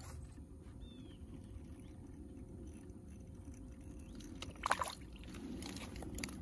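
A faint steady low rumble, with a short sharp click about four and a half seconds in and a few lighter clicks near the end as the small spinning reel and line of an ice-fishing rod are handled.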